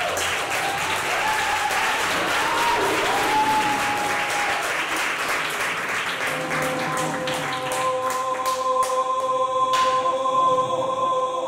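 Audience applauding over the dance music, with a voice singing a few sliding notes. The clapping dies away about six seconds in, leaving a long held chord in the music and a few scattered claps.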